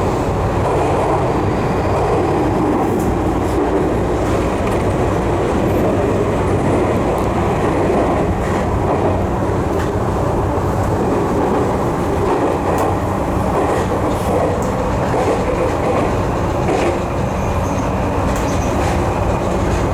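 Tokyu 3020 series electric train running, heard from inside the car: a steady running noise of wheels and motors with a low hum and scattered faint clicks.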